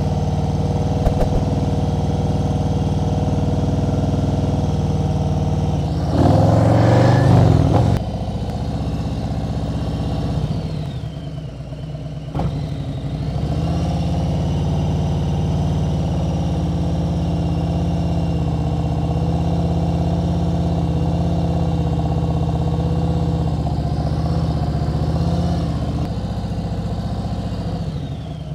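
Harley-Davidson touring motorcycle's V-twin engine running at a low, steady throttle while the bike is ridden slowly through tight turns. About six seconds in, a louder rush of noise lasts about two seconds.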